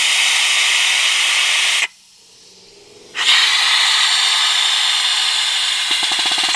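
Snap-on pneumatic vacuum brake bleeder gun hissing loudly as compressed air rushes through it, sucking air and brake fluid out of the brake line through the caliper's bleeder fitting. The hiss cuts off about two seconds in and starts again about a second later.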